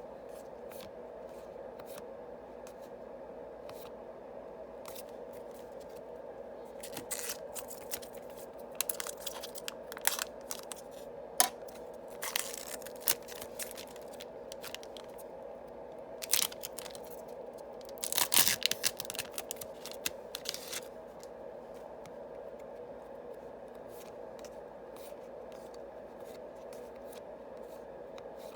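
Yu-Gi-Oh booster packs being opened and the cards handled: crinkling and tearing of the foil wrappers with light clicks and rustles, busiest in the middle stretch and loudest about two-thirds through, over a steady low room hum.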